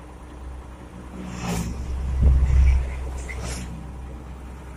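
A heavy vehicle passing close by on the road: a deep rumble that swells to its loudest about two and a half seconds in and then fades, with two brief hissing rushes around it.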